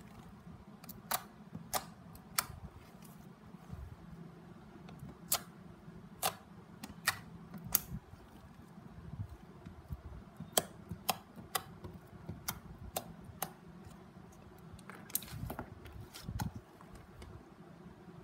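Fingers tapping and poking clear glitter slime, making irregular sharp sticky clicks and pops, some in quick runs, over a low steady hum.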